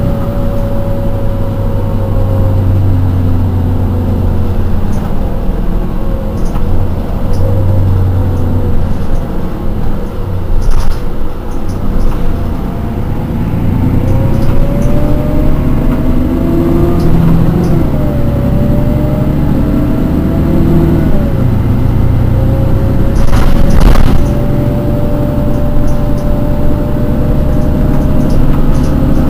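Mercedes-Benz Citaro city bus under way: a steady engine drone with a whine over it that climbs as the bus gathers speed, drops sharply once midway, then climbs again and holds steady. Two brief knocks stand out along the way.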